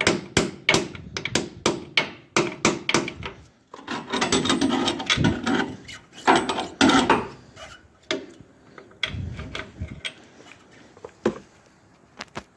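Hammer striking the steel shock-absorber mounting hardware on a truck, a quick run of sharp blows about three a second. Then a few seconds of scraping and a few scattered knocks as the part is worked into place.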